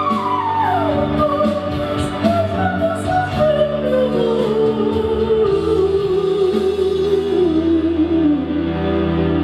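Male solo singing voice through a handheld microphone over instrumental accompaniment: a high note that falls away in a long, slowly descending line, reaching its lowest near the end.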